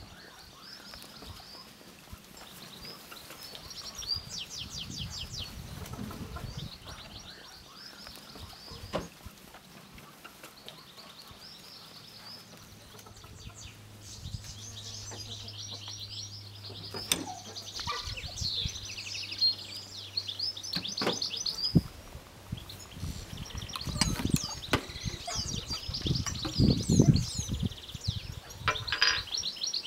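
Small songbirds singing repeated high, fast trills and chirps. A faint low hum runs through the middle, and scraping and knocking sounds come near the end, the loudest part.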